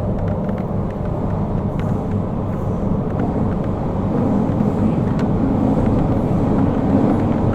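MTR K-Train running between stations, heard from on board: a steady low rumble of wheels and running gear with a few faint clicks, growing louder in the last few seconds.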